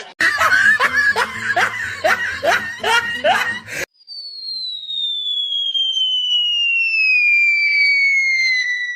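Comedy sound effects: a loud burst of rhythmic laughter, 'ha-ha-ha' repeated about two to three times a second, cuts off near four seconds in. It is followed by a single whistle that slides steadily down in pitch for about five seconds.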